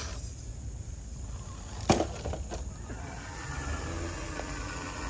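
Low, steady rumble of a panel truck's running engine, with one sharp knock about two seconds in and two fainter clicks just after.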